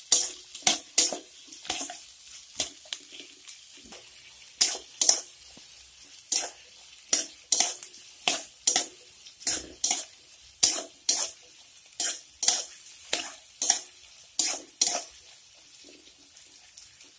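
Spatula scraping round a metal kadai, tossing diced carrots and green beans lightly frying in ghee and oil: brisk strokes roughly two a second, with short pauses about three seconds in and near the end, over a faint sizzle.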